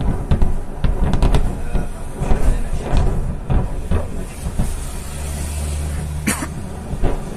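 Ammunition depot explosions: a heavy low rumble with repeated sudden booms and thuds, and one sharp crack near the end. A low engine hum runs underneath for a second or so past the middle.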